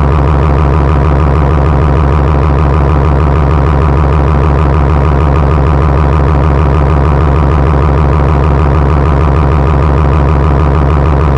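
Extremely loud, heavily distorted buzzing drone held at one pitch, an 'earrape'-style sound effect used for the red-screen shouting scene of a GoAnimate cartoon.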